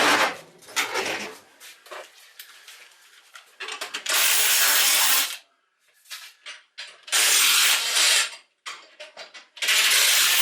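Driver drill running in short bursts of about a second, three times, turning the bolts of a welding table's leg-raising mechanism, with clicks and rattles between the bursts.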